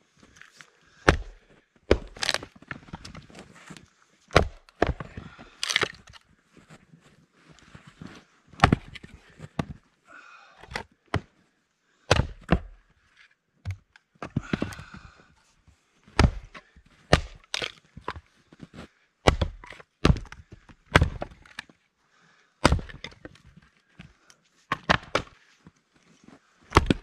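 Two vintage axes, a 4-pound Craftsman Hytest and a Plumb Rockaway, splitting firewood rounds: many sharp chops of steel axe heads biting into wood, coming at an uneven pace from the two choppers, with cracks as the rounds split.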